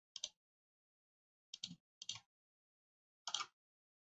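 Four faint computer-mouse clicks, spaced unevenly over a few seconds, each a short click.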